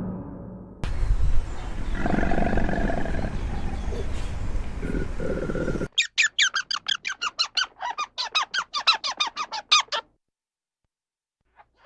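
Two animal calls in turn: first a rough, noisy call lasting about five seconds, then a rapid run of short, high, downward-sweeping chirps, about five a second, for about four seconds.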